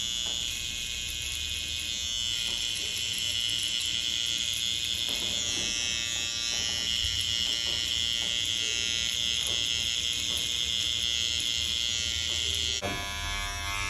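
Cordless T-blade hair trimmer running with a steady high whine while marking a straight hairline around the ear. Its whine drops away abruptly near the end.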